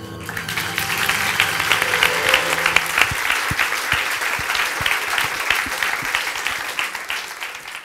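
Audience applauding: dense clapping that swells in the first second and fades out near the end.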